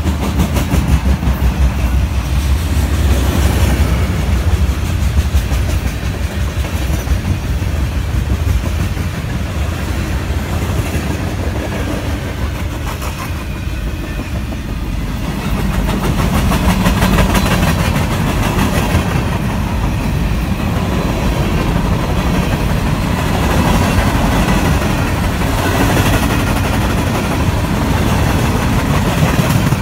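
Freight train of tank cars, boxcars and covered hoppers rolling past close by: steel wheels rumbling on the rails, with a steady run of clicks as the wheels cross rail joints.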